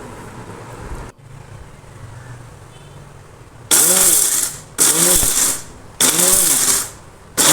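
Electric mixer grinder (mixie) run in short pulses, grinding toasted coriander seeds and long pepper into powder. From about halfway in come three bursts of about a second each, the motor's pitch rising and falling within each one, and a fourth begins at the very end. The pulsing gives an even, slightly coarse grind.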